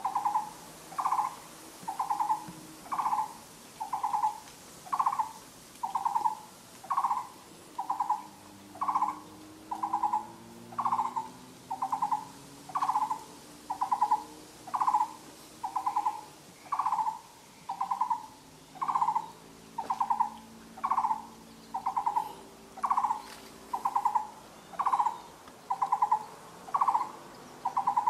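Taiwan barbet calling: a short, low note repeated about once a second at a steady, even pace, on and on without a break.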